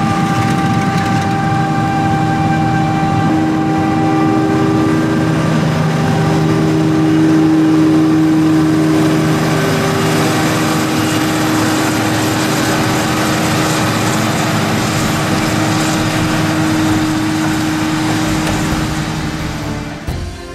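Heavy diesel farm machinery running steadily, a droning engine hum with a few sustained tones that shift slightly in pitch, easing off near the end.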